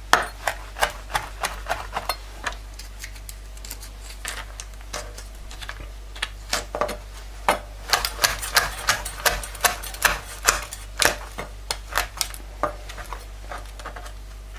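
Kitchen knife chopping a dried chili on a plastic cutting board: quick, irregular knocks of the blade on the board, a few a second, sparser and fainter for a few seconds in the middle.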